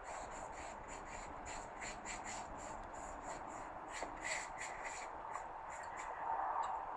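Paintbrush bristles stroking thin acrylic paint across paper: a soft scratchy swish repeated in quick short strokes, about three or four a second.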